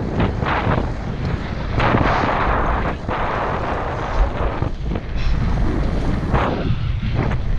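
Wind buffeting an action camera's microphone as a mountain bike rolls fast along a dirt trail, with tyre rumble and the bike rattling over bumps. The noise swells and dips, with a few short knocks.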